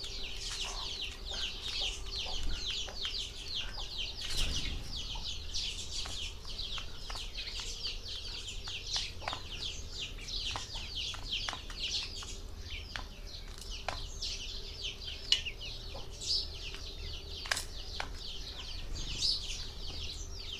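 A flock of small birds chirping nonstop in a dense chorus of quick, high chirps, with scattered sharp ticks through it.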